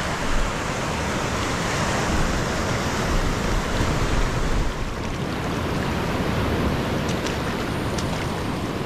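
Surf washing up a shallow sandy beach: a steady hiss of breaking waves and spreading foam, with a few faint clicks near the end.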